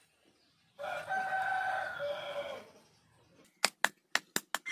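A rooster crows once, a long call of nearly two seconds. About three and a half seconds in, a hatchet starts striking a piece of wood on a chopping stump in quick, sharp knocks, several a second.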